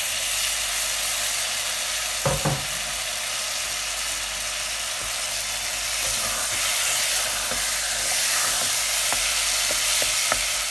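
Freshly added sliced tomatoes sizzling steadily in hot oil on a bed of fried onions, stirred with a wooden spoon that gives a knock about two seconds in and a few light clicks near the end.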